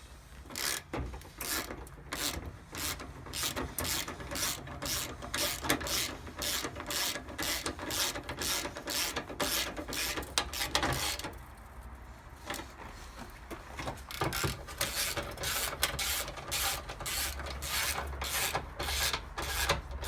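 Ratchet spanner clicking in steady back-and-forth strokes, about three a second, as headlight mounting nuts are run down onto their studs. It pauses about eleven seconds in, then starts again about three seconds later.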